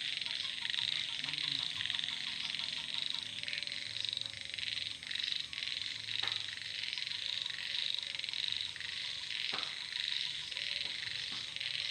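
Night chorus of frogs and insects: a dense, steady high trilling with rapid pulsed frog calls over it, and two sharp clicks about six and nine and a half seconds in.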